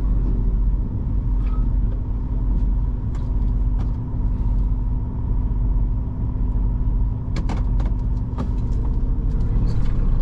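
Semi-truck diesel engine running at low speed, a steady low rumble and hum heard from inside the cab, with a few sharp clicks about seven and a half seconds in.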